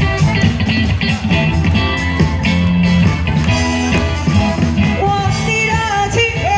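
Live band playing a rock-style pop song, with a woman singing into a microphone over it.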